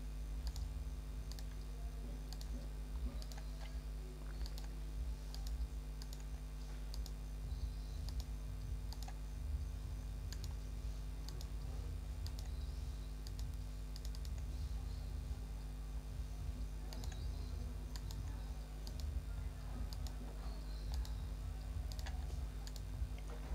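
Scattered light clicks at an irregular pace over a steady low electrical hum.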